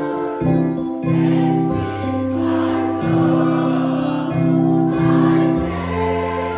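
Gospel music with singing, held chords changing about once a second.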